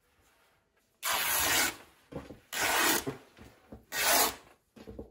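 Cotton fabric being pulled and smoothed across a tabletop: three rubbing swishes, each under a second long, the first about a second in.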